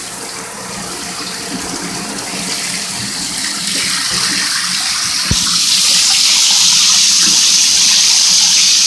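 Shower spray running into a bathtub, a steady hiss of water that grows louder over the first few seconds, then turns louder and brighter about five seconds in.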